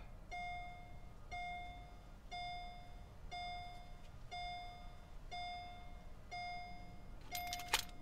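Mercedes-Benz SL500 warning chime dinging once a second, a single bell-like tone repeating steadily: the car's key-reminder alert.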